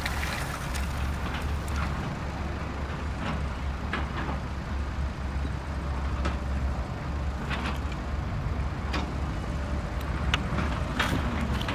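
A steady low rumble, with scattered short clicks and rattles as sand and small stones slide out of the tipped plastic body of a Bruder toy dump truck.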